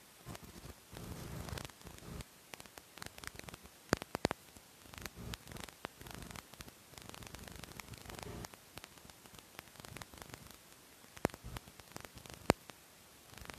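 Faint crackling static over a low hum, with scattered clicks and a few sharp pops, the loudest about four seconds in and twice near the end.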